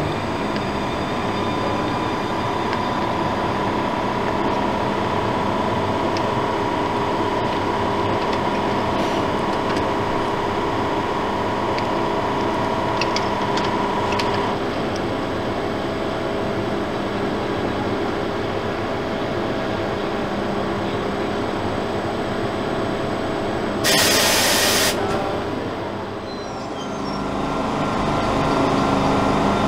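SBB Re 460 electric locomotive standing at a platform, its equipment humming steadily with a whine that cuts off about halfway through. About 24 seconds in there is a loud hiss lasting about a second, then the low rumble of a second train moving on the adjacent track builds.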